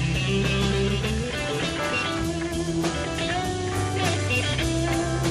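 Southern rock band playing an instrumental passage: a guitar line with bent notes over sustained bass and drums.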